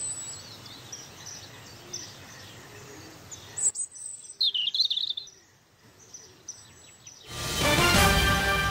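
Outdoor ambience with birds chirping, a louder cluster of chirps about halfway through. Loud music cuts in about seven seconds in.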